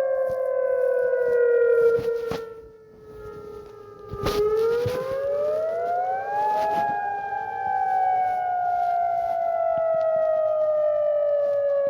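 Civil defence warning siren wailing: a single tone sliding slowly down in pitch, rising quickly back up about four to six seconds in, then sliding slowly down again. It fades for a moment before the rise, and there is a brief click just as the pitch turns upward.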